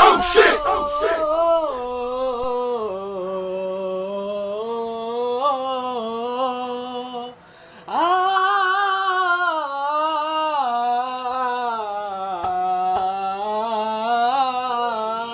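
A man's voice singing a long, drawn-out "oh-ho" chant in two long wavering phrases, the first breaking off about seven seconds in and the second starting again half a second later. A few loud clicks sound during the first second or so.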